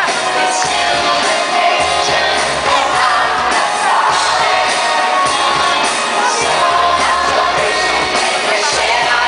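Live pop music in an arena: a female singer over a full band backing, with shouts from the crowd mixed in.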